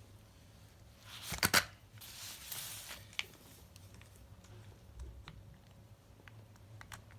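Handling and testing of a corded rotary multi tool: a short, loud cluster of sharp clicks and crackle about a second and a half in, then a brief hiss and a few light clicks.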